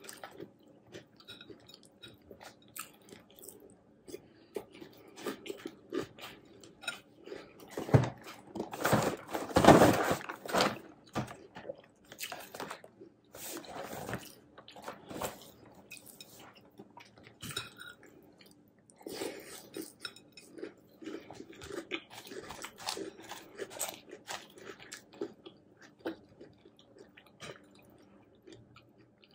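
Close-miked chewing and crunching of a mouthful of hot cocoa cereal with marshmallows in milk, with the clicks of a metal spoon in a glass bowl. About eight seconds in comes a louder stretch of rustling lasting a few seconds as the cardboard cereal box is handled.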